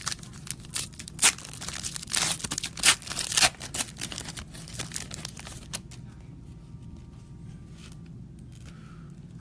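Foil wrapper of a Certified football card pack being torn open: a quick run of sharp ripping and crinkling in the first few seconds, then only faint rustling as the cards come out.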